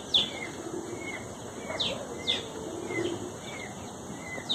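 A bird calling in a string of short chirps, each dropping sharply in pitch, unevenly spaced a second or less apart.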